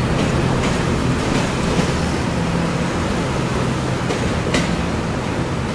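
Taiwan Railway EMU800 electric multiple unit moving along the station track, a steady running noise with a low hum and a few clicks, the sharpest one about four and a half seconds in.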